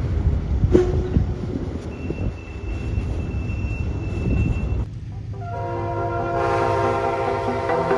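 Freight cars rolling past with a low rumble and wheel clicks, and a thin, steady high squeal for about two seconds as the last cars clear. The rumble cuts off about five seconds in, and electronic music starts and builds.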